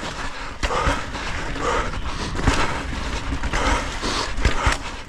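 Full-suspension mountain bike riding down a rough, rocky trail: a steady rush of tyre and trail noise with chain and frame rattle, broken by several sharp knocks as the wheels hit rocks.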